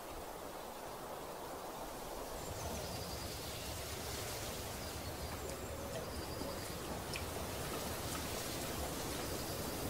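Outdoor natural ambience: a steady rushing noise that grows fuller about two and a half seconds in, with a few short, faint, high-pitched chirps scattered through the rest.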